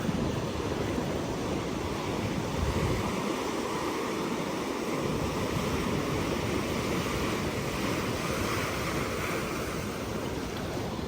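Sea waves washing onto a beach in a steady rush, with wind buffeting the microphone, most strongly in the first few seconds.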